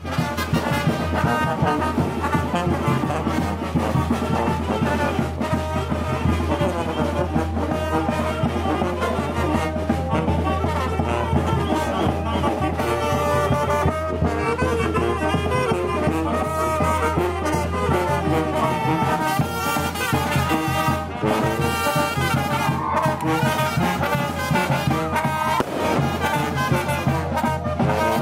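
Brass band playing a lively tune, with trumpets and trombones over a steady low bass.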